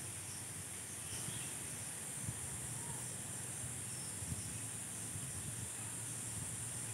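Steady high-pitched drone of insects, with low rumble and small irregular knocks from handling of the camera's microphone.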